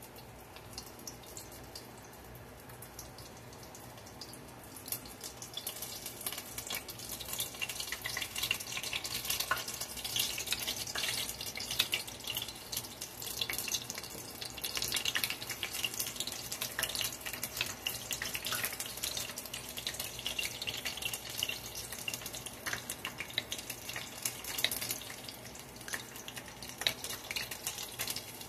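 Battered onion rings deep-frying in a pot of hot oil: a dense sizzle and crackle that grows louder and busier about five seconds in, as more rings go into the oil.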